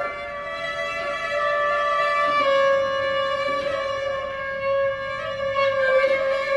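Slow, sustained cello and saxophone music: long held notes, one of them held steadily for the last four seconds with a slight dip in pitch near the end.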